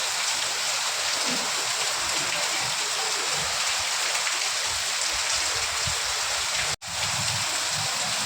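Steady rain falling, an even hiss with scattered low rumbles underneath. It cuts out for a split second near the end, then resumes.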